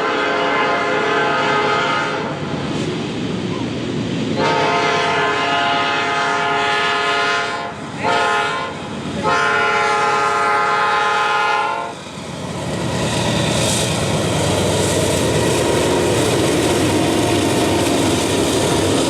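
Freight train's diesel locomotive sounding its multi-tone horn in the grade-crossing pattern: the end of one blast, then a long, a short and a long blast ending about twelve seconds in. After that the train passes close by with a steady rumble and wheel clatter on the rails.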